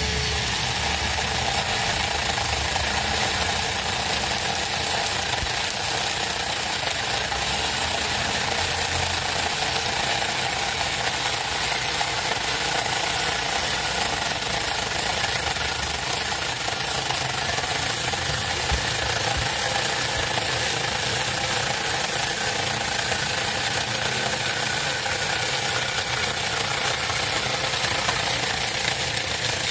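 Small 6-inch Huber chainsaw running continuously while cutting wood.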